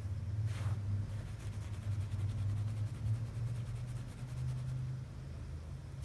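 Domestic cat purring close to the microphone: a steady low rumble with a fast, even pulse.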